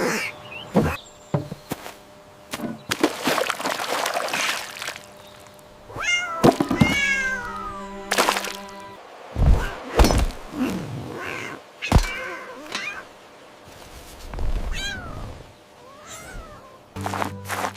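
Cat meowing several times in short rising-and-falling calls, with a few sharp thumps and background music.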